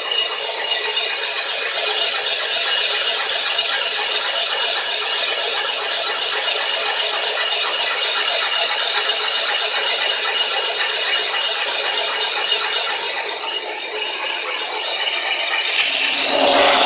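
Van Norman 777S boring bar running steadily, its cutter boring out a cylinder of a 454 big block Chevy cast-iron block. The noise gets louder about a second before the end.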